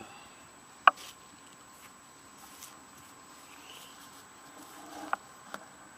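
A single sharp knock about a second in and a softer one about five seconds in, over a faint steady background.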